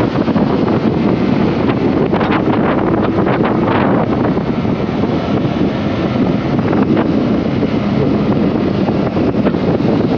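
Steady wind rush on the microphone of a Honda CBR150R motorcycle riding at road speed, with the bike's running mixed in underneath.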